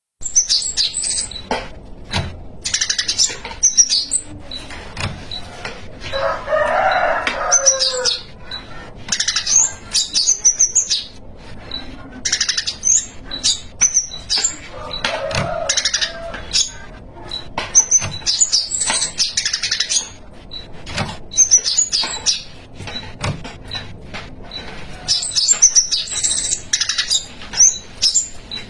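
A spiderhunter singing in repeated bursts of fast, high chirping phrases with short pauses between them, a trained song filled with learned phrases. About six seconds in there is a lower, fuller phrase of about two seconds.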